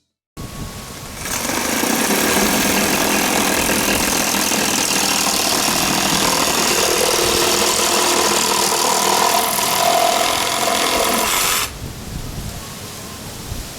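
Reciprocating saw fitted with a thick plastic-pipe blade, cutting through thick PVC/PE pipe with a steady, rapid rasping. The sound starts softly, is loud for about ten seconds during the cut, then drops sharply near the end.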